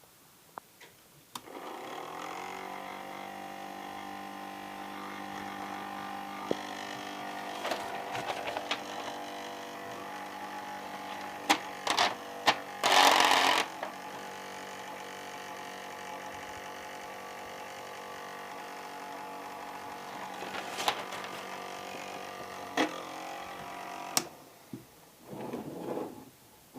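Small solar-powered DC fan motor starting about a second and a half in and running with a steady whirring hum, then stopping shortly before the end. Scattered clicks and one short, louder burst of rustling noise about halfway through.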